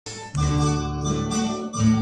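Instrumental introduction to a song, starting about a third of a second in: sustained chords over a bass line, with no voice yet.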